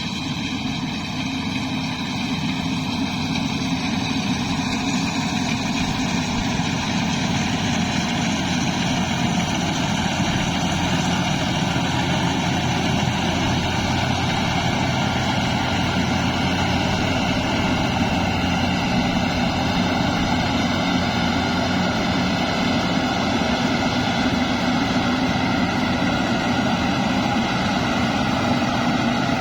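Rice combine harvester running steadily: a continuous engine-and-machinery drone made of several steady tones.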